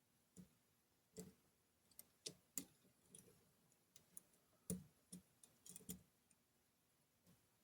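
Faint, irregular metallic clicks of a lock pick working the pins of a Kenaurd 5-pin pin-in-pin dimple lock under light tension, the small clicks of pins being lifted and setting.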